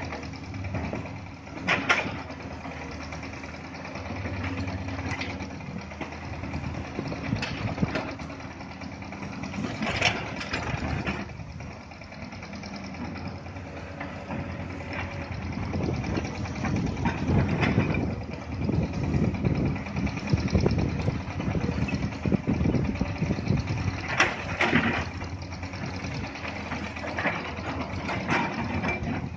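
Diesel engines of two Komatsu hydraulic excavators running under working load while they dig rock. The engines get louder and rougher from about halfway through, and there are occasional sharp clanks of steel buckets striking rock.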